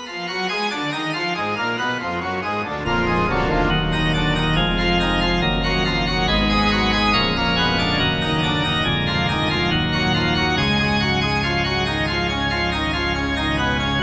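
Organ music: held, many-voiced organ chords, with deep bass notes coming in about three seconds in.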